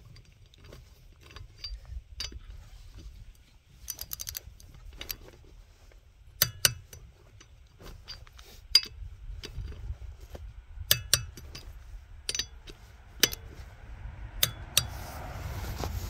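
Click-type torque wrench set at 100 ft-lb clicking sharply as each lug nut is rechecked, the clicks coming every one to three seconds, several in quick pairs, with the socket clinking against the nuts.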